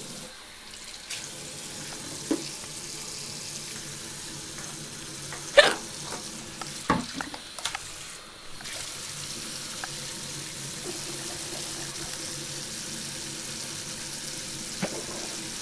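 Tooth-brushing at a bathroom sink: a steady scrubbing hiss, broken by several short, sharp hiccups, the loudest about five and a half seconds in.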